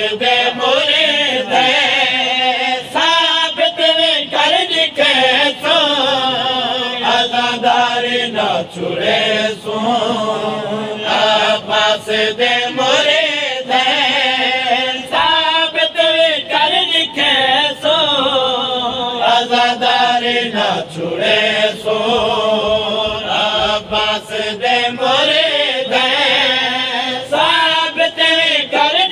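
A man chanting a devotional lament (noha) in long, wavering melodic phrases, loud and continuous, as other voices in the gathering chant along.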